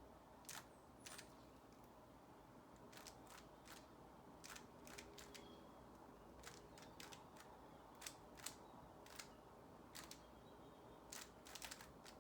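Faint, irregular plastic clicks of a Rubik's cube's layers being turned, some in quick pairs and clusters, as the first two layers are solved.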